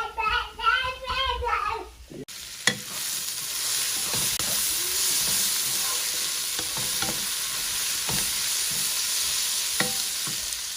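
Food sizzling steadily in a frying pan, with a utensil clicking against the pan now and then as it is stirred. Before that, a voice sings briefly.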